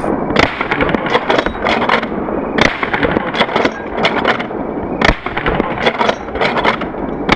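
Lever-action rifle fired rapid-fire with homemade black-powder loads: sharp shots about two and a half seconds apart, with the clack of the lever being worked and spent cases ejected between them.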